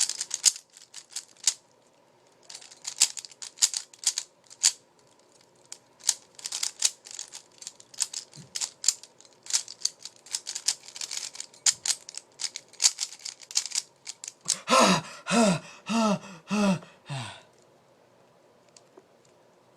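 A 3x3 Rubik's cube being turned quickly by hand: rapid flurries of sharp plastic clicks and clacks as the layers snap round, with short pauses between runs. About fifteen seconds in, the clicking stops and a person's voice calls out four short syllables.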